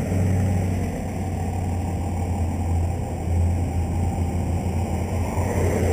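Road traffic going by: vehicle engines running with a steady low rumble.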